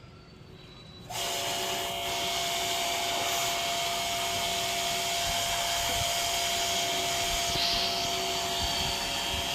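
A motor-driven machine starts about a second in and runs steadily, a hissing rush with a steady hum.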